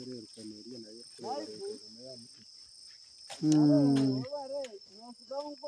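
A steady, high-pitched trill from a chorus of insects, with men's voices talking over it; one voice is much louder for about a second, three and a half seconds in.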